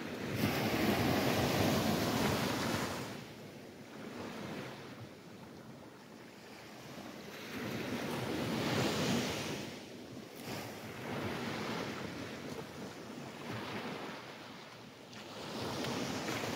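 Small waves breaking and washing up a sandy beach, the surf rising and falling in slow swells about every seven or eight seconds.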